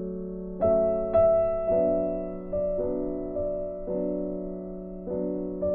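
Background piano music: a slow, gentle melody, single notes struck about once a second and left to ring out.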